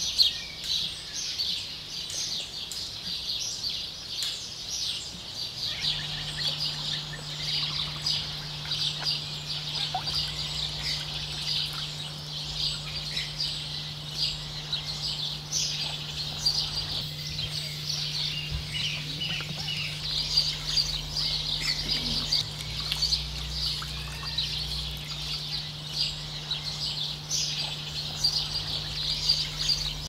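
Dense, continuous chorus of high-pitched chirps, many short calls overlapping without a break, over a steady low hum that grows louder about six seconds in.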